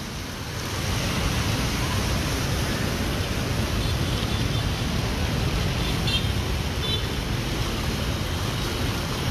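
Steady rushing of swirling floodwater, a little louder from about a second in.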